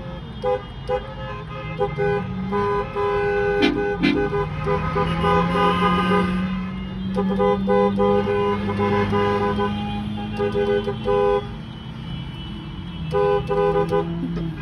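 Several car horns honking from passing vehicles, short toots and long held blasts overlapping, with one long blast held for about four seconds in the middle. A steady low drone runs beneath them for most of the stretch.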